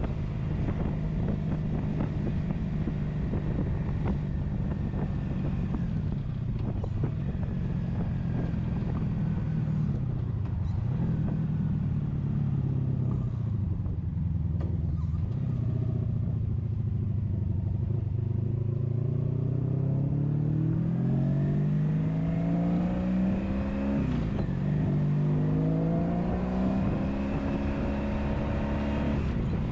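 1983 Honda Sabre's V4 engine running while under way, with wind buffeting the microphone. The engine note holds steady, dips briefly about ten seconds in, then rises twice in the second half as it accelerates, with a gear change between the two rises.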